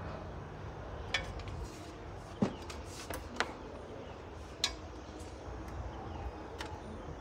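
Scattered light clicks and knocks of equipment being handled: a DVD player's metal case and a loudspeaker being shifted and set down on a wooden tabletop, five or six sharp taps over a steady low background rumble.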